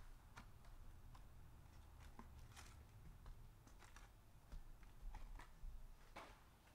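Faint clicks and rustles of hands handling a cardboard trading-card box and pulling a foil pack from it: a dozen or so short, sharp ticks, scattered irregularly.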